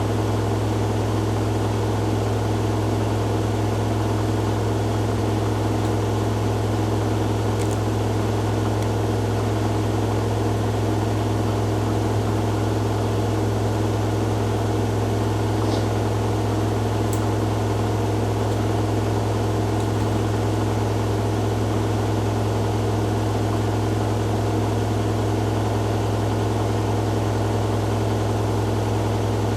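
Hoover Dynamic Next washing machine drum spinning at high speed on its 1600 rpm spin cycle: a loud, steady, unchanging hum.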